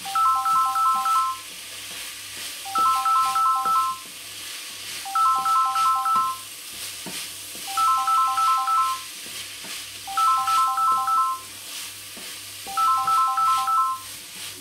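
An electronic ringtone: bursts of rapid beeps on three pitches, each burst about a second long and repeating every two and a half seconds. Under it, a spatula scrapes and stirs rice in a sizzling frying pan.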